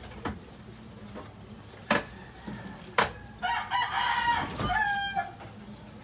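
A rooster crowing once, a pitched call lasting about two seconds in the second half. Before it come two sharp clicks about a second apart.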